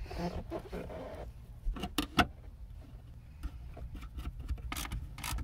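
Hand-handling noise from a boat horn being refitted to its metal mounting bracket under the dash: rustling at first, then a couple of sharp metallic clicks about two seconds in and a few lighter clicks later, over a low steady hum.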